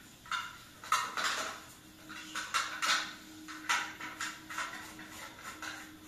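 A bathtub being scrubbed by hand: a series of quick rubbing strokes against the tub at irregular intervals, over a faint steady hum.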